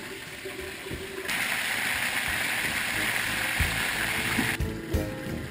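Chicken pieces frying in a covered pan: a steady sizzle that starts abruptly about a second in and cuts off shortly before the end.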